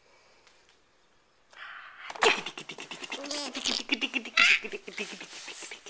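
A person's sneeze about two seconds in, running into several seconds of rapid, breathy, pulsing vocal sounds.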